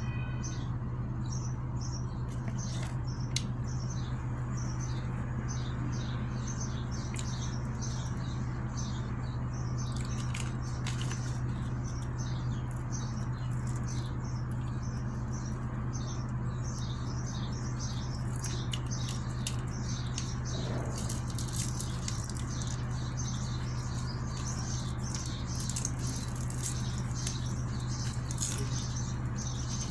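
Eating sounds, with occasional sharp clicks and crunches, over a steady low hum. Rapid high chirping of small birds goes on throughout.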